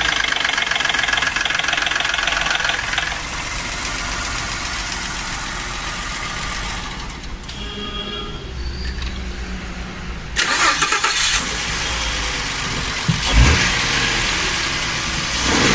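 Ford F-150 EcoBoost V6 engine running with a timing-chain noise: the chain slaps while a discharged hydraulic tensioner builds oil pressure, a cold-start fault that Ford covered with a recall campaign. The noise is rattlier in the first few seconds, with a few louder noisy patches and a sharp knock in the second half.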